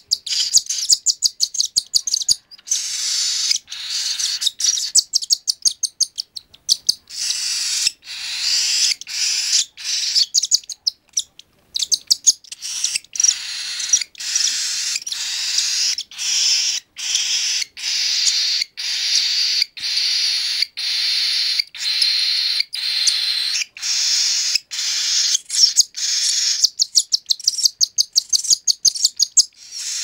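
Three-week-old cockatiel chick giving harsh, hissy food-begging calls while being hand-fed. The calls come in runs of rapid pulses with brief pauses.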